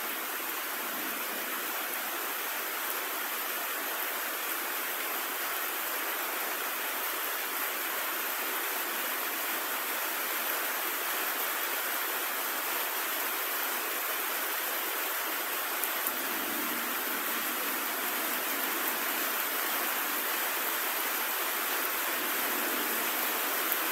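Storm rain falling steadily, an even rushing noise with no thunder.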